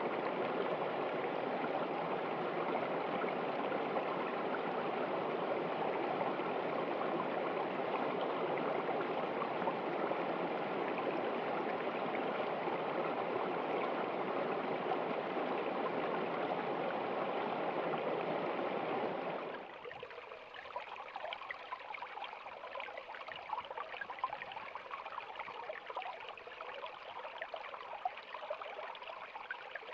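Mountain stream flowing over rocks as a steady rush of water. About two-thirds of the way through, it changes abruptly to a quieter, lighter trickle and splashing.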